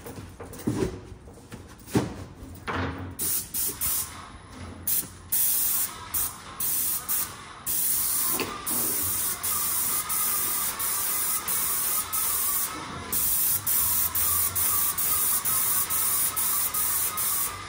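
Small paint sprayer's hose-fed gun spraying paint onto a wall: a hiss that comes in short on-off bursts with each pull of the trigger, then is held almost without a break from about eight seconds in, with a wavering whine underneath. A few knocks come in the first few seconds.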